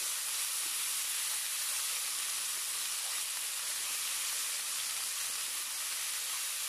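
Garlic paste sizzling steadily in hot oil in a wok, a smooth, even hiss throughout.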